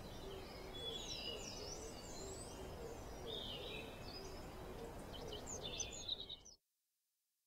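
Woodland birds calling: varied high chirps and whistled glides over a steady low repeated hooting note, with a soft outdoor hiss. It all cuts off abruptly near the end.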